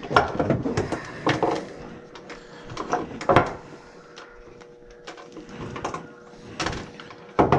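Clicks and rattling clatter of hands working at furnace wiring and metal panel parts, in several short bursts with quiet gaps between, over a steady faint tone.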